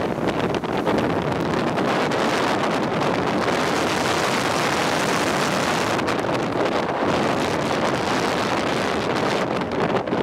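Steady rush of wind buffeting the microphone at downhill speed, mixed with the roll of longboard wheels on asphalt.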